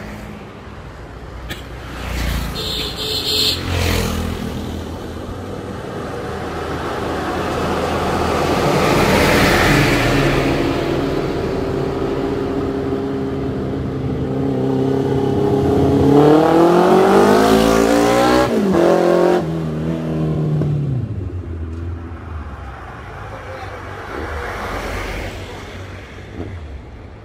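Honda CB1300's inline-four engine through an aftermarket Arrow exhaust, revving hard as the bike rides past: the note builds and climbs in pitch, drops sharply as it passes about two-thirds of the way in, then fades away.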